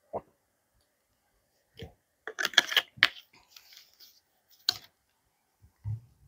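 Scattered handling noises: a cluster of rustles and clicks about two to three seconds in, a single sharp click near five seconds, and a dull low thump near the end.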